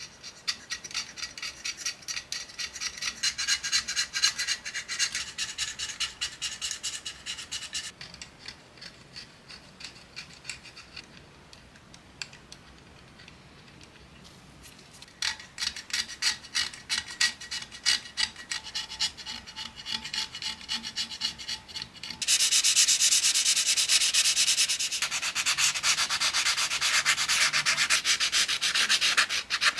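Utility-knife blade scraping the black paint off raised details of a cast-iron coal iron in quick short strokes, then, about two-thirds of the way in, sandpaper on a block rubbing across its painted edges, louder and without a break, to bare the metal.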